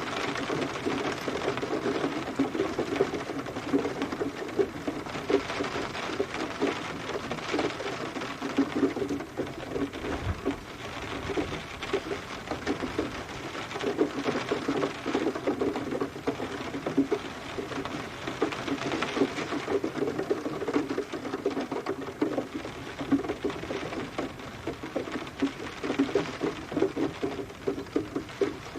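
Steady rain with drops pattering densely on a hard surface, over a soft hiss of rainfall, swelling and easing gently.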